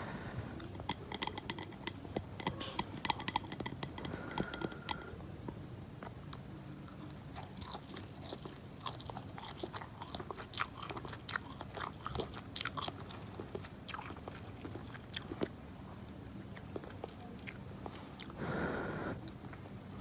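Close-miked eating: a person biting and chewing food, with many wet mouth clicks, dense in the first few seconds and sparser after. A brief louder swell of noise comes near the end.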